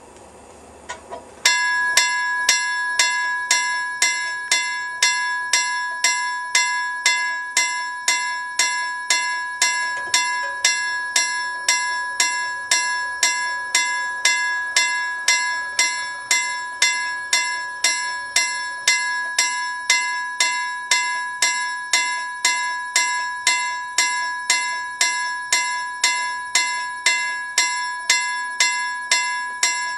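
Level-crossing warning bell ringing with rapid, evenly spaced strikes, a little under two a second, starting about a second and a half in after two faint clicks. It signals that a train is approaching the crossing.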